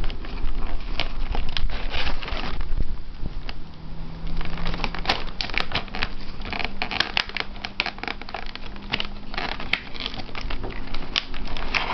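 Clear plastic blister packaging and a cardboard box being handled: crackling and crinkling with many irregular clicks and knocks as the contents are taken out of the plastic tray.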